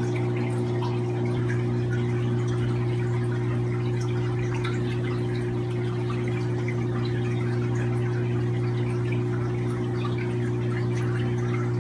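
Aquarium pump humming steadily, with water bubbling and trickling in the tank.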